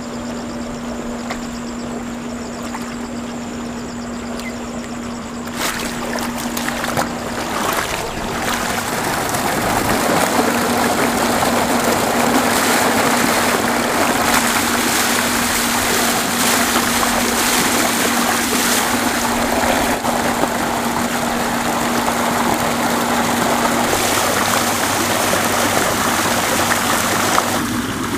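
Water from a tube well running: first a quieter flow in the irrigation channel, then, from about eight seconds in, a louder, steady gush as the outlet pipe pours into a brick tank. A pump motor hums steadily underneath.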